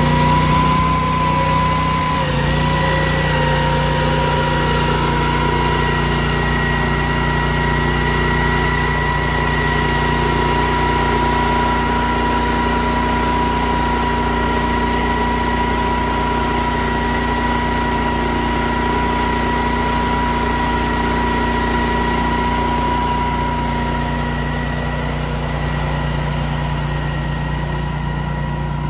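Honda petrol engine of a Graden sand-injection scarifier running steadily under load while its blades cut lines into the green about 20 mm deep and sand is injected behind them. A steady high whine sits over the engine note, and the pitch shifts slightly about two seconds in.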